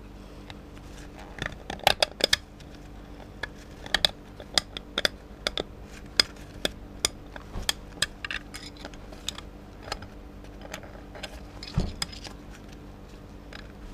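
Irregular sharp metallic clicks and scrapes of a steel tool working a waved snap ring out of the groove in a Ford AOD transmission's reverse clutch drum, steel on steel, with the loudest cluster about two seconds in. A faint steady low hum runs underneath.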